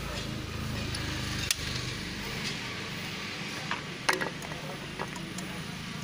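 Metal clinks and a sharp clank about four seconds in as the lid of a bitumen extraction centrifuge is unscrewed and lifted off its bowl, over a steady low engine hum.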